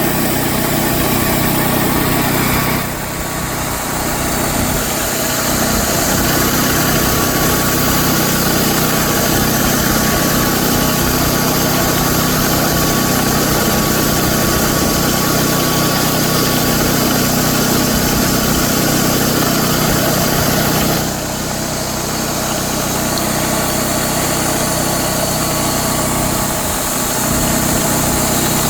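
Belt grinder running steadily while a false edge is ground onto a forged knife blade. The sound dips briefly twice, about 3 seconds in and again about 21 seconds in.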